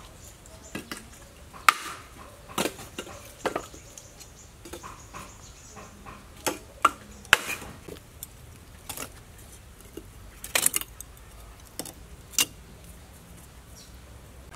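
Lumps of charcoal clinking and knocking against each other and the clay stove as they are set in by hand: about a dozen sharp, irregular knocks, a few louder than the rest.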